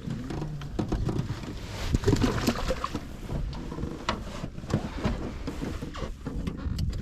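Handling noise in a small fishing boat: irregular knocks, clicks and rustling.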